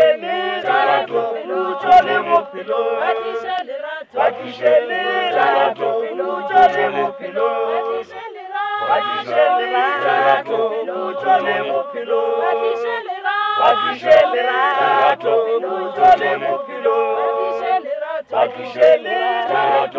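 Choir singing a cappella in harmony, with a low voice part repeating in a steady beat beneath the melody.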